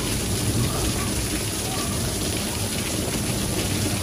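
Heavy rain pouring down steadily in a thunderstorm downpour, an even hiss of rain hitting the ground.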